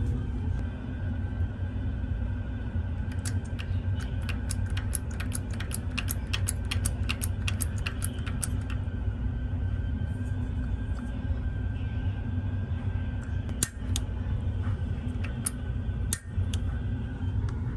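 A quick run of sharp clicks, about three a second for several seconds, then a few single clicks, over a steady low rumble.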